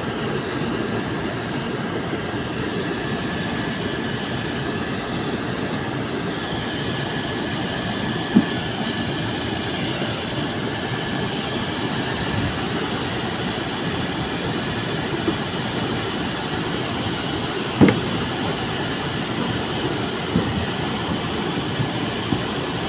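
Air-conditioning system running: a steady mechanical rumble with a thin, steady whine above it, and a couple of short knocks partway through. The system has iced up and is blowing weakly.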